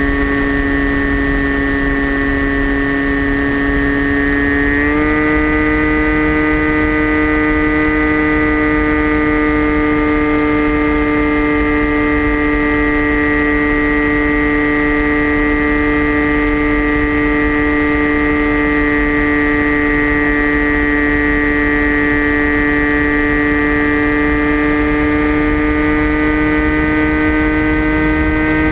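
Electric motor and propeller of a TBS Caipirinha FPV flying wing, a steady high-pitched whine heard from onboard. Its pitch steps up about five seconds in and rises a little again near the end.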